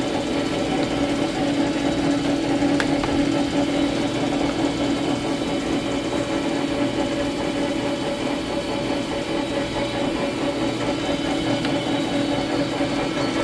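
South Bend Turnado engine lathe running with its spindle turning: a steady mechanical hum from the motor and headstock gearing, with no cutting.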